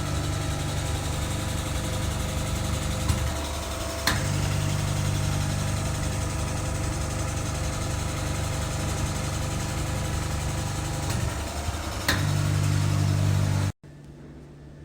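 Vacuum suction pump of a Velashape-type body-contouring machine humming steadily while a treatment handle runs. The hum dips briefly twice, a few sharp clicks sound, and it cuts off abruptly near the end.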